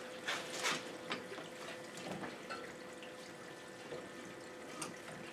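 Cleaning solution trickling from the hose of a homemade cooler parts washer over a small engine crankcase, with a small pump humming steadily underneath. A few light knocks and scrapes come as the gloved hands handle the part in the tub.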